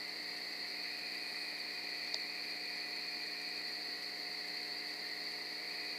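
Steady, unbroken chorus of crickets, a continuous high-pitched trilling at night, with one faint click about two seconds in.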